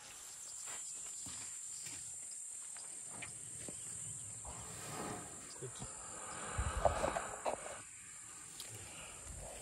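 Steady high-pitched insect buzz runs through the whole sound. From about five to eight seconds in, a louder, close-up burst of low rumble, rustling and a few knocks rises over it and peaks near seven seconds, as an African elephant's trunk comes right up against the microphone.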